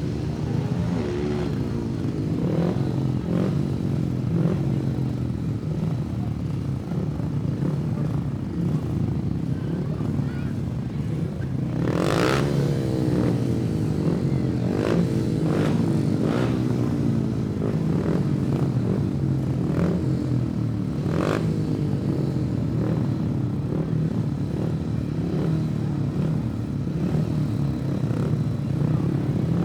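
Racing engines from several vehicles running together, revving up and down as they pass, with a louder passing engine about twelve seconds in.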